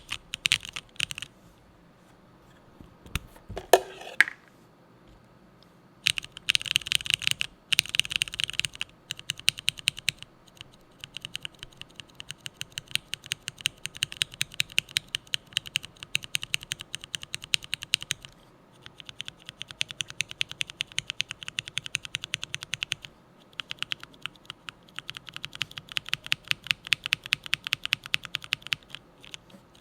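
Typing on a mechanical keyboard: a Kalam Kohaku with a stock aluminium plate and no foam, fitted with lubed Black Cherry Quinn franken switches (vintage Cherry MX Black housings, Gateron Quinn stems) and SP DCS keycaps. It goes in fast, steady runs of keystrokes with a couple of short pauses. About four seconds in, before the long runs begin, there is a brief sliding sound that falls in pitch.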